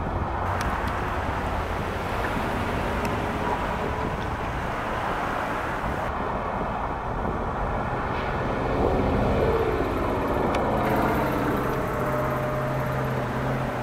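Steady low rumble of road traffic, with a low engine hum joining about eleven seconds in.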